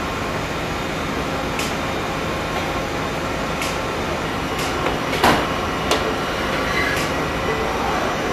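REX S80A pipe threading machine running with a steady mechanical hum, broken by occasional sharp metallic clicks and one louder clank about five seconds in.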